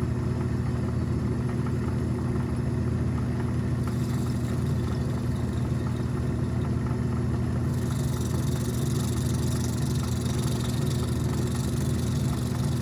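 Atlas metal lathe running at steady speed, its motor and drive humming evenly while boring out the centre of a 3D-printed plastic part. A higher hiss grows about four seconds in and again near eight seconds.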